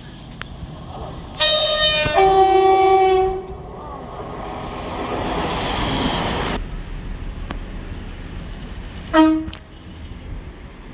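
A train's two-tone horn sounds a high note, then a lower note, together about two seconds long. Then comes the rushing noise of a train passing, which cuts off suddenly, and near the end one short horn toot.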